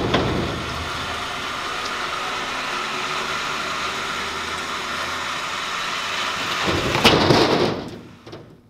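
Steady heavy mechanical noise while a cut steel truck-bed section is winched, then a loud crash about seven seconds in as the section drops onto the trailer, fading away afterwards.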